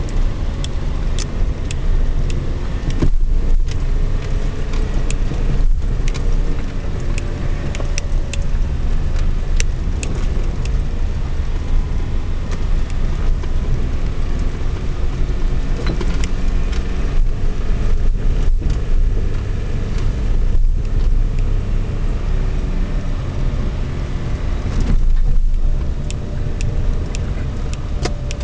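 Car engine and tyre noise heard from inside the cabin while driving, running steadily, with scattered light clicks.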